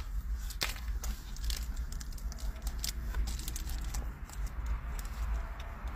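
A white chocolate macadamia nut cookie being bitten into and chewed close to the microphone: a sharp crunch about half a second in, then irregular crackly chewing clicks. A steady low rumble runs underneath.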